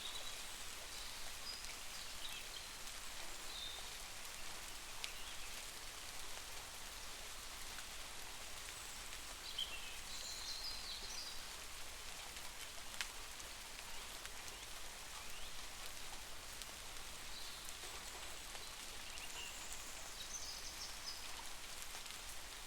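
Steady rain falling, an even hiss without thunder, with faint short high chirps here and there and one sharp drip-like tick about halfway through.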